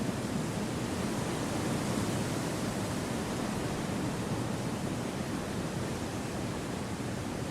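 Wind blowing steadily, a continuous even rush of noise with no distinct gusts, rustles or other sounds.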